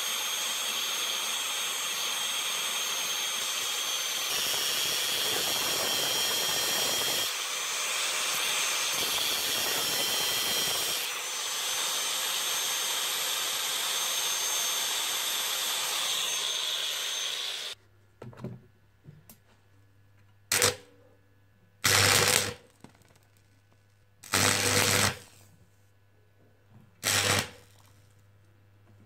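An angle grinder runs steadily for about 17 seconds, its pitch shifting slightly as it works on metal, and then stops. After that a stick welder hums low and steady while five short crackling bursts of arc welding, each about a second long, strike on the impact wrench's steel housing.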